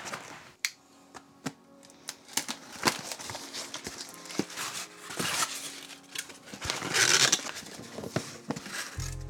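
Hands unpacking a parcel: a plastic shipping mailer crinkles, and cardboard box flaps scrape and tear open, with scattered knocks as the box is handled. The loudest stretch of rustling comes about seven seconds in, and background music starts near the end.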